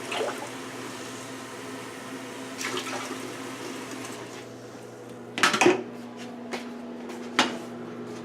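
Water poured into a cooking pot for a broth, then a loud clatter of kitchenware about five and a half seconds in and a sharper knock about two seconds later.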